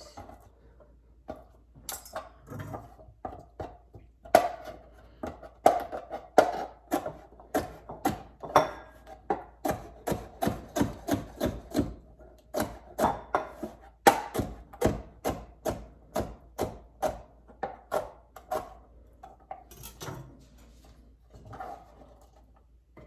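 Kitchen knife chopping vegetables on a cutting board: a run of sharp chops at about two a second, sparser at first and near the end.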